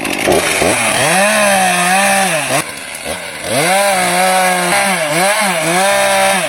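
Chainsaw running at high revs as it cuts into a tree, its pitch sagging under load and recovering again and again. The engine drops back briefly between about two and a half and three and a half seconds in, then revs up again.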